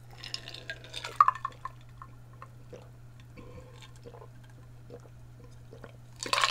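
A person drinking Coca-Cola with ice from a glass: soft swallowing and liquid sounds with small clicks of ice against the glass. A short, louder rush of noise comes right at the end.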